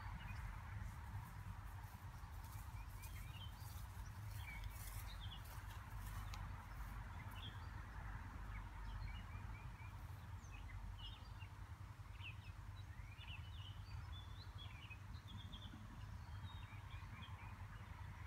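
Small birds chirping, many short high calls scattered throughout, over a steady low outdoor rumble.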